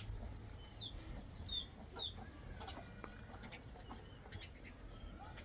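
Faint bird chirping: a few short falling chirps in the first two seconds, over a low rumble.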